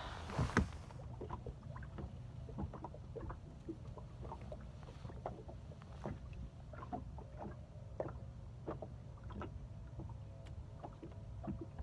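Water lapping against a small fishing boat's hull: a scatter of soft, irregular taps over a steady low rumble, with a couple of louder knocks just after the start.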